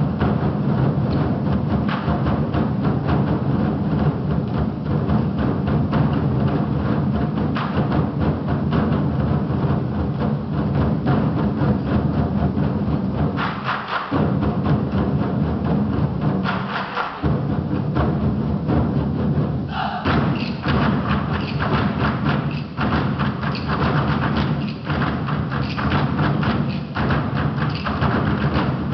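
Ensemble of 24 Festive Drums, large Chinese barrel drums struck with sticks, playing loud, dense rhythms in unison. The drumming breaks off briefly twice about halfway through, then resumes.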